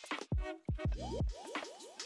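Background electronic hip-hop style music: deep bass drum hits with a falling pitch, and from about a second in a run of quick rising, bubbly synth blips.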